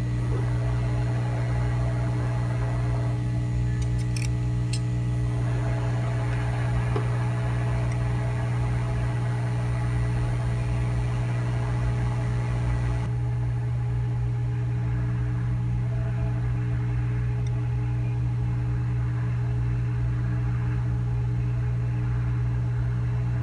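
Hot air rework gun blowing at a low air setting onto a BGA chip to melt its solder for removal: a steady blower hum with a strong low drone and a hiss that softens a little about halfway through.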